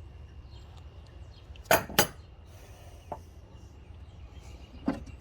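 Metal hand tools clinking as they are handled and set down: two sharp clinks close together about two seconds in, then two lighter knocks.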